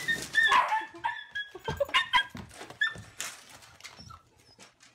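Dog whimpering: a string of short, high-pitched whines that fade out after about four seconds.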